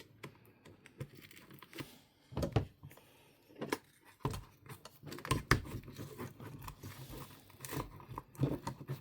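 Irregular handling noise from a folding pruning saw and its spare blades being fitted: scattered plastic and metal clicks and taps with soft rustling between them, a little louder about two and a half and five and a half seconds in.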